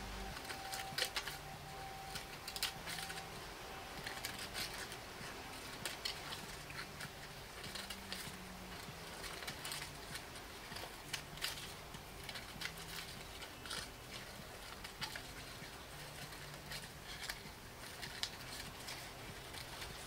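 Scissors snipping into the pleated sides of paper muffin cups: many short, sharp cuts at irregular intervals.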